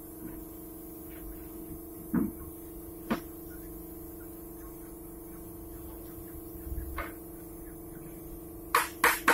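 A steady low electrical hum with a few faint knocks. Near the end a rhythmic musical beat starts.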